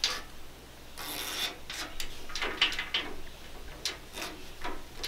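Spline roller pressing rubber spline and screen mesh into the channel of a metal window-screen frame: a series of irregular rubbing, scraping strokes, the longest about a second in.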